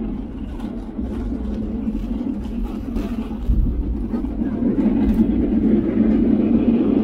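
Cabin noise of a Boeing 737 airliner on its landing rollout, ground spoilers raised: a steady rumble and roar of engines and wheels on the runway, with light rattles. It grows louder about halfway through.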